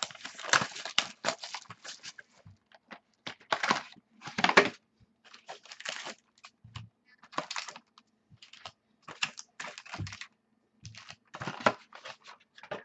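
Shrink wrap and packaging of a trading-card box crinkling and tearing as it is peeled off and the box is opened by hand, in irregular rustling bursts with sharp clicks between.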